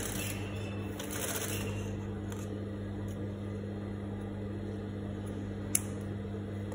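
Cotton fabric rustling as it is smoothed and handled, then tailor's scissors trimming the edge, with one sharp snip near the end. A steady low hum runs underneath.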